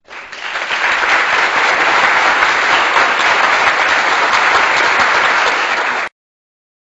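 Applause: dense, even clapping from a crowd that fades in quickly, holds steady and cuts off abruptly about six seconds in.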